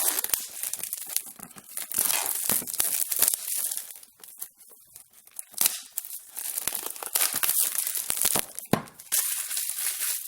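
Product packaging being torn open and crinkled by hand: several long stretches of ripping with short pauses and a few sharp clicks.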